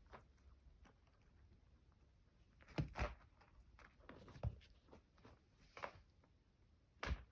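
A few soft knocks and taps from a kitten playing in a quiet small room. There is a pair about three seconds in, more around four and a half and six seconds, and a sharper one near the end.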